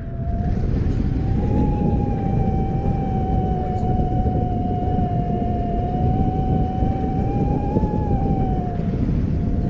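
Wind rushing over the camera microphone in tandem paraglider flight. A steady tone of slightly wavering pitch is held through most of it.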